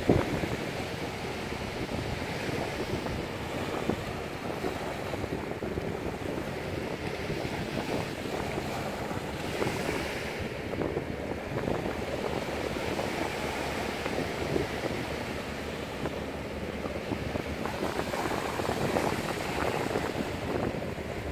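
Sea waves washing on the shore, with wind blowing across the microphone. The rushing noise swells and eases with the waves.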